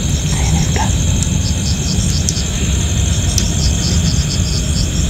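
Night-time frog and insect chorus: a steady high buzz with a pulsing call about four times a second, over a steady low rumble.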